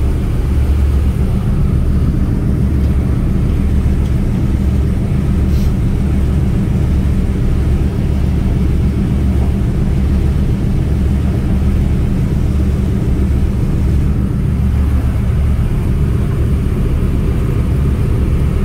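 1928 Ford Trimotor's three radial engines running at taxi power, heard from inside the cabin as a loud, low, steady drone with an uneven throb.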